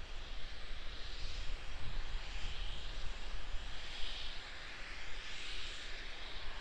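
Distant steady rushing hiss of Starship SN10 venting propellant vapour during loading, swelling and fading a little, over a low rumble.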